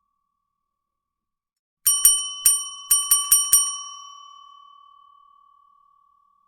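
Service desk bell struck seven times in quick succession, starting about two seconds in, each strike a bright ding on the same pitch. The ringing then fades away over about two seconds.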